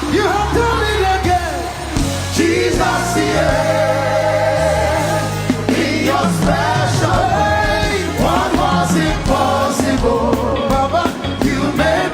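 Gospel music with a choir or congregation singing over a steady bass line.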